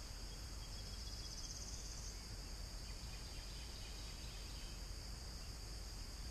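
Steady high-pitched chorus of insects shrilling, with a short faster trill about a second in.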